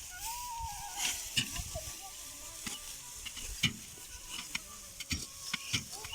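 Dry rice straw rustling and crackling as it is handled during the harvest, with many scattered sharp snaps and clicks.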